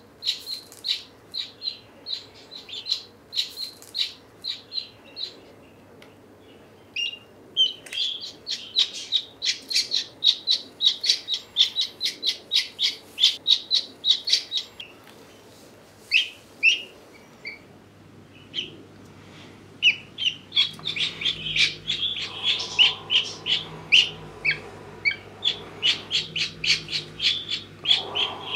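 Newly hatched chick peeping in rapid, high, short chirps, with a couple of brief pauses, as it is helped out of its shell.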